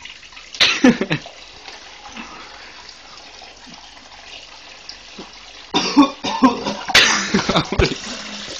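A person coughing and spluttering over a kitchen sink, choking on dry cinnamon powder, while the tap runs steadily. There is a short coughing fit about a second in and a harder, longer one from about six seconds.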